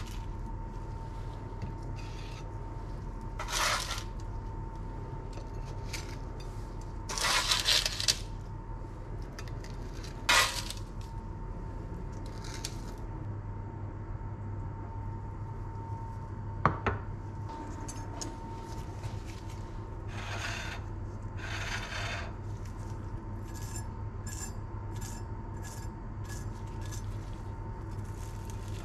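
Kitchen utensil sounds: a spatula scraping under baked tuna patties on a baking tray and patties being set on a ceramic plate, in separate scrapes and knocks. Near the end, a knife and fork clink and scrape against the plate in a run of quick light clicks. A steady low hum runs underneath.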